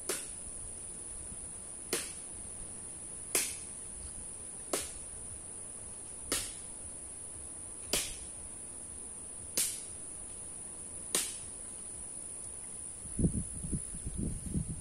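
Steady high-pitched insect drone with a short, sharp call repeating about every second and a half. Near the end, rustling and bumping.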